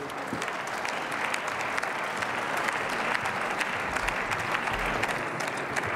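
Applause from members of parliament: many people clapping at a steady level, a dense patter of hand claps.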